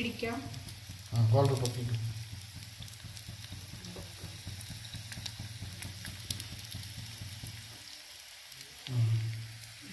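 An egg frying in oil inside a coconut shell over a gas flame, with a steady fine sizzle and faint crackles. Brief murmured voices about a second in and near the end.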